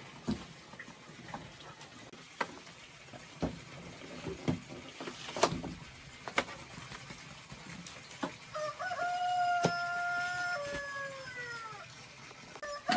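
A few scattered clicks and knocks, then, about eight seconds in, a rooster crows once: a long held call that falls in pitch at the end. A second crow starts just at the end.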